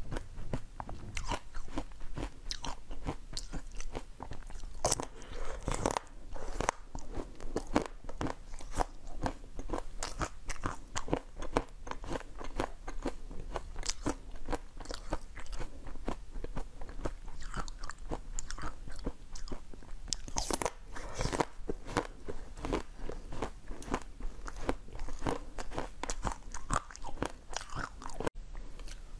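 Close-up eating sounds: a person bites into and chews a yellow, sprinkle-coated sweet stick, giving a dense, irregular run of sharp crunches and chewing.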